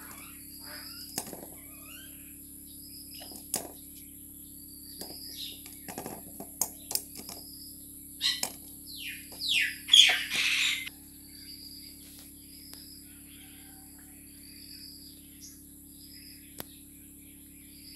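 Chickens feeding on scattered rice. There are scattered sharp taps and short high chirps, and a burst of loud, falling bird calls about eight to eleven seconds in.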